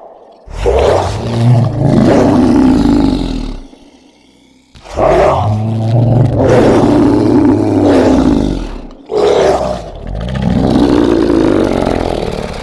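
Designed horror monster roar sound effect: long, deep roars, one after another. The first runs about three seconds, a longer one starts about five seconds in, and a shorter roar is followed by a long one that fades away near the end.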